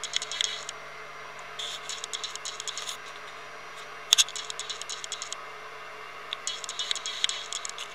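Drill press running with a steady motor hum while a drill bit cuts into a metal plate. Bursts of scratchy, rattling chip noise come and go, with a sharper clatter about four seconds in.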